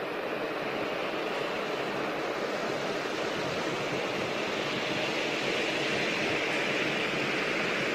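Steady rushing jet noise from the Boeing 777-9's GE9X turbofan engines at taxi power, slowly growing louder.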